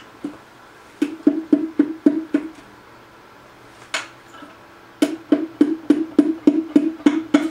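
Ratchet wrench clicking in two even runs of about three to four clicks a second, each click with a short ring, as it turns bolts on a bare GM 3800 V6 engine block during teardown.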